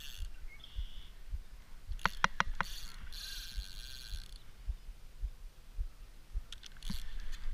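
Spinning reel's drag buzzing in short runs as a hooked carp pulls line, with a quick series of clicks about two seconds in and low thuds about twice a second underneath.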